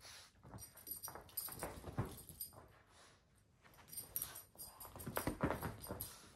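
Boston terrier puppy shaking and wrestling a plush toy: an irregular patter of paws and claws scrabbling on a rug, with the toy flapping. It goes quiet for a moment midway, then gets busier toward the end.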